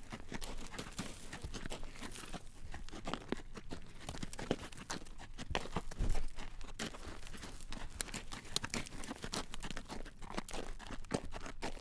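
Horse drawing a carriage down a road: hooves clacking on the road surface amid the rattle of the carriage, a dense run of sharp clicks, with one heavier knock about six seconds in.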